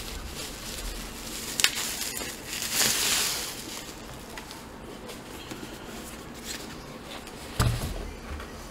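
Bubble wrap rustling and crinkling as a wrapped book is handled and lifted away, with a sharp click about a second and a half in and a dull thump near the end.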